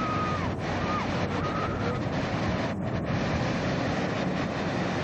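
Surf breaking and washing around people wading in the shallows, with wind buffeting the microphone. A few short, high children's cries in the first two seconds.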